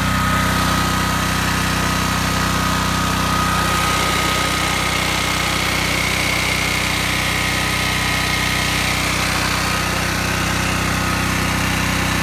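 Generac XP8000E portable generator's 407 cc single-cylinder OHV engine running at a steady speed on a test run after fresh oil, air filter and spark plug, with a thin steady whine over the engine note.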